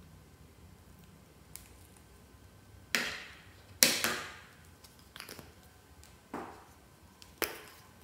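Fluffy slime being pressed and folded by hand, giving about six sharp sticky clicks and pops spread over several seconds, the loudest a little under four seconds in.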